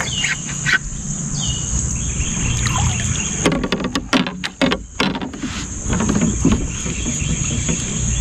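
Handling noise: a quick run of clicks and knocks about halfway through, over a low rumble, with a few short bird chirps in the first two seconds.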